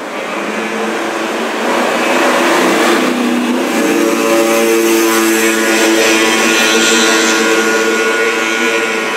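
Car engines running and accelerating as cars drive past on a street, the sound swelling about two seconds in and easing near the end.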